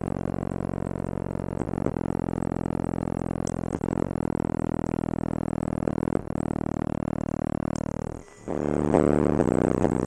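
Car engine running at steady revs with road noise, heard from inside the cabin while driving, with a few light knocks. About eight seconds in it drops away briefly and a louder, changing sound takes over.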